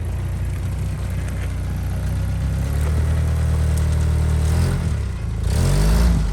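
1987 Toyota pickup's engine pulling under load in low gear on a rock step, its note growing stronger about three seconds in. Near the end it revs up and down twice with a burst of noise as the truck fails to climb onto the traction boards.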